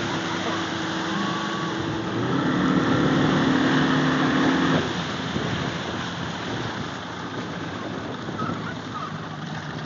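Johnson V4 two-stroke outboard running at speed with the rush of the boat's wake. About five seconds in the throttle comes back, the engine note drops and the overall sound gets quieter as the boat slows.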